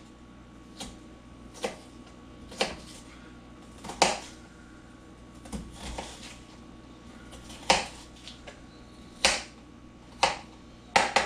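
Kitchen knife dicing an onion on a cutting board: about ten sharp chops, irregularly spaced, roughly one a second.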